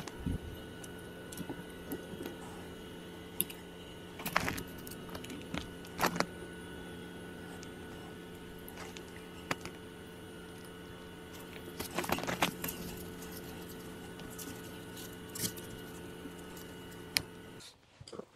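Scattered small clicks and knocks of plastic sprinkler fittings and a hand tool being handled, over a steady background hum that cuts off near the end.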